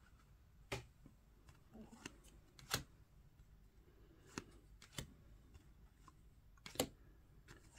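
Trading cards handled by hand: about six sharp card snaps and taps as the cards are flicked through, spaced out over otherwise quiet room tone.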